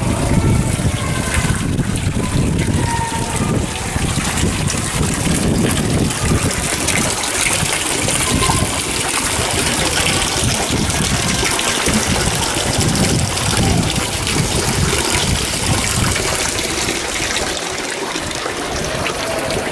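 Fountain water pouring steadily from a spout and splashing into a stone basin.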